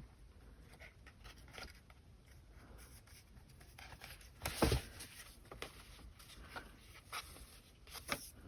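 Faint rustling and light tapping of paper and fabric being handled as a fabric tab is glued onto a journal page, with one louder knock about halfway through and a few soft taps near the end.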